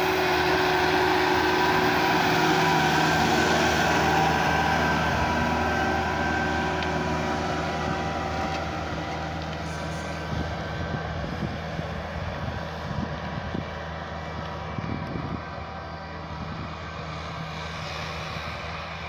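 Case 100 hp tractor's diesel engine running steadily under load as it pulls a 22-disc harrow through the soil. The sound slowly fades as the tractor moves away.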